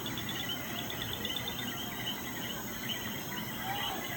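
Night chorus of insects chirping: many rapid, high-pitched chirps repeating steadily, with no fireworks bangs.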